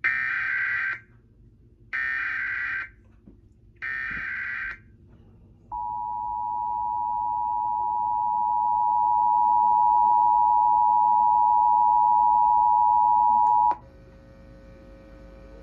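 Emergency Alert System header: three buzzy, warbling data bursts of about a second each, a second apart. Then the two-tone attention signal, a steady dual-pitch tone that grows louder over its first few seconds, holds for about eight seconds and cuts off sharply. Together they announce a required monthly EAS test.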